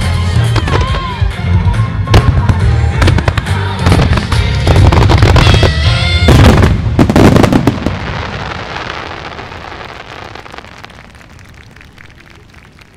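A fireworks starmine: fan-shaped volleys of shells fire in rapid salvos over music, building to a dense climax of bangs about seven seconds in. The music then stops and the crackle of the last shells fades away.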